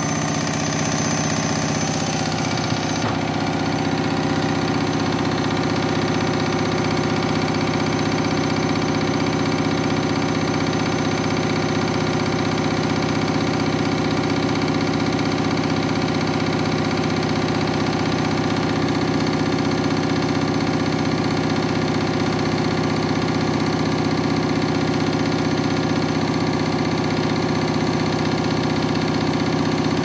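Front-loading washing machine spinning a load of towels at a steady speed: an even motor whine over the hum of the spinning drum.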